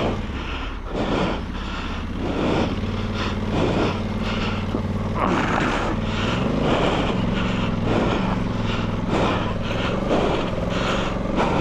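Honda Africa Twin's parallel-twin engine running at low revs as the motorcycle climbs a rough dirt track, with the revs rising and easing off about halfway through. Repeated knocks and rattles from the bike over the rough ground come roughly once a second.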